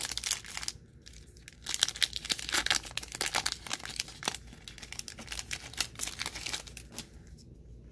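Baseball card pack wrapper being torn open and crinkled by hand: a dense run of sharp crackles, with a short lull about a second in, dying down near the end.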